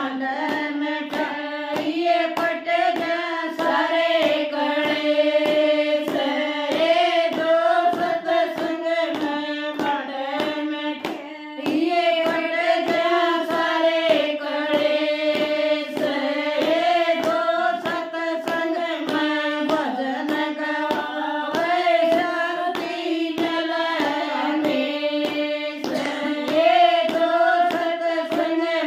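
Group of women singing a devotional bhajan together, unaccompanied, keeping time with steady hand claps about twice a second.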